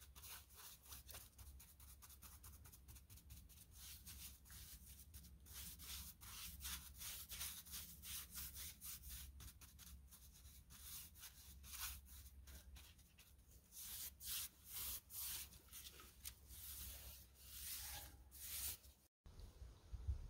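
Bristle paintbrush scrubbing stain onto a log in quick, repeated strokes, each a short soft swish. The strokes get louder and slower in the last few seconds, then cut off abruptly near the end.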